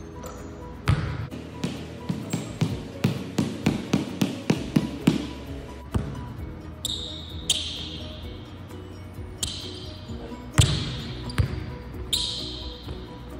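Basketball bounced on a hardwood gym floor, with a quick run of dribbles at about four a second in the middle, over background music.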